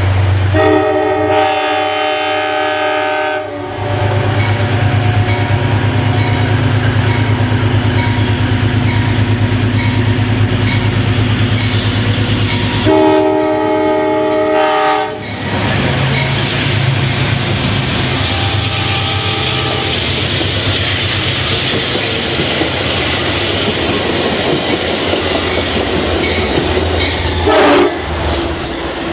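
Amtrak passenger train approaching and passing close by. Its horn sounds twice, a long blast about a second in and a shorter one around the middle, over a low steady rumble. Then a loud steady rush of the cars and wheels on the rails fills the rest.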